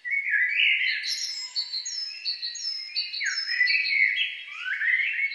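Songbirds singing: a busy run of chirps and whistled notes that starts abruptly.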